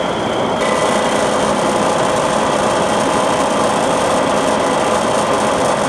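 Drilling machine running with a steady mechanical hum and a few steady tones; the sound turns brighter and hissier about half a second in.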